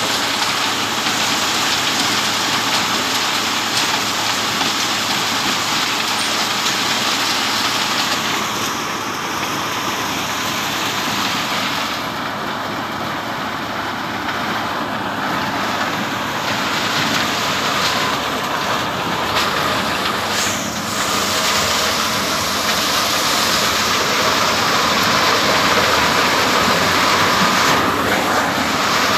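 A maize thresher (corn sheller) running steadily under load, a continuous dense mechanical din as cobs are fed in and stripped of their kernels.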